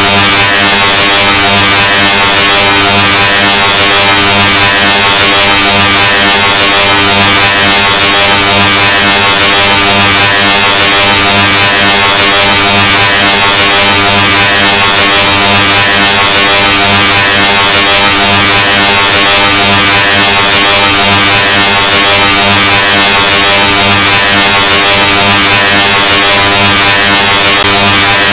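'Loudness 2.0' meme sound effect: a steady, extremely loud buzz driven to the point of distortion, a low droning tone thick with overtones under a harsh hiss. It does not change at all.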